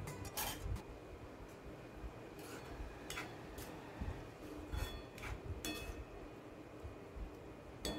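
Faint light clinks of a metal spoon against a metal kadhai as a thick curry is stirred: a handful of separate taps spread over several seconds.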